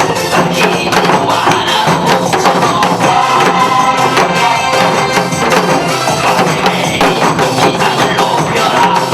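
Upbeat recorded dance music with a group of janggu hourglass drums struck along to it in quick, dense strokes.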